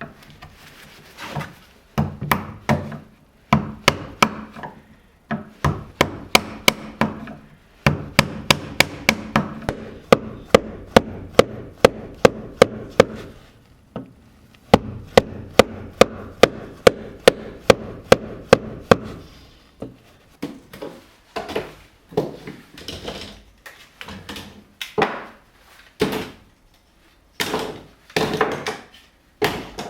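Repeated blows striking wood while working a walnut knife sheath (saya): sharp knocks at about two a second in steady runs, thinning to slower, irregular knocks in the last third, with a low steady hum under the fast runs.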